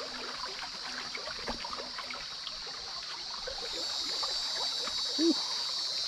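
Footsteps crunching through dry leaf litter and twigs, a dense run of small crackles, over a steady high insect drone. A short low vocal sound comes about five seconds in.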